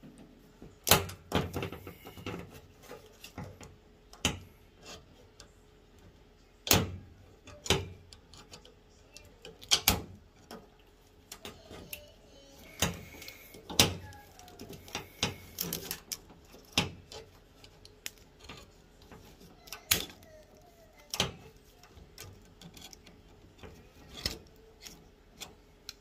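Hose clamps being fitted onto the hoses of a new water inlet valve in an LG front-loading washer: irregular sharp clicks and clacks of metal and plastic, one every second or two.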